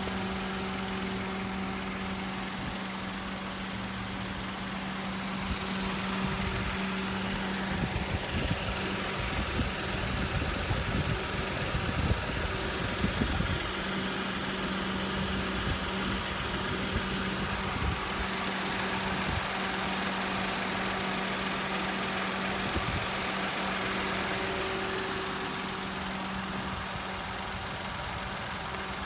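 2017 Mitsubishi Mirage G4's 1.2 L MIVEC three-cylinder engine idling with a steady hum and an even tone. There is some irregular low rumbling from about eight to fourteen seconds in.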